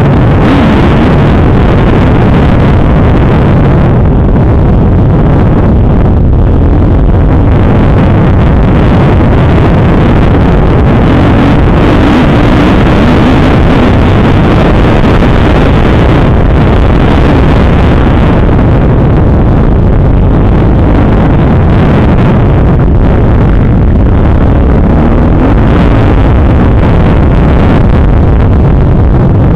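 Kawasaki KX250F motocross bike's four-stroke single-cylinder engine, heard from onboard at close range, running loud, its pitch rising and falling as the throttle opens and closes. Wind buffets the microphone.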